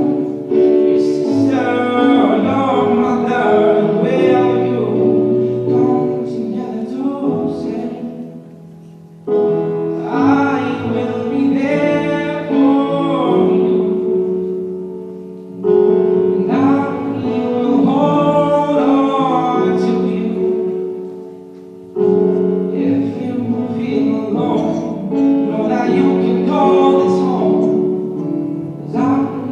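A song with a singer and piano accompaniment, sung in phrases of several seconds, each new phrase starting strongly after a brief softer dip.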